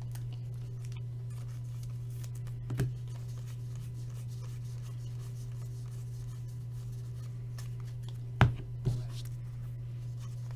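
Trading cards being handled and set down on a table, with a few short taps, the sharpest one near the end, over a steady low hum.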